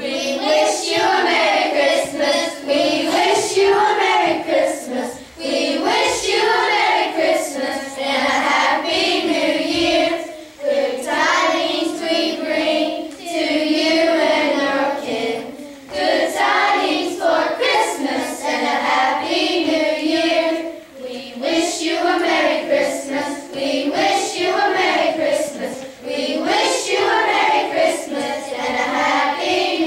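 A group of children and young people singing together in phrases of about five seconds, with short breaks for breath between them.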